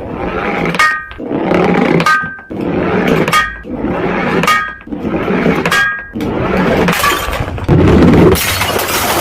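Glass bottles shattering one after another, a new smash about every second: a crash of breaking glass followed by a brief ringing clink of shards. The loudest smash comes near the end.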